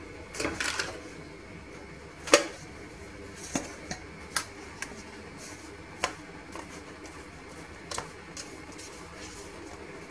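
A few separate sharp knocks and clicks as a metal springform cake ring is handled on a stone counter and pressed onto sponge cake, the loudest about two and a half seconds in, with a short rustle just under a second in.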